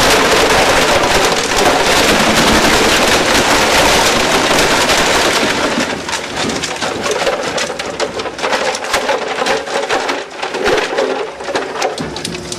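Cumberland CXS 1200 shredder's rotor knives cutting heavy-duty nylon buckets: a loud, dense crackle of plastic being chopped. About six seconds in it drops in level and thins to separate sharp cracks as less plastic is left in the chamber.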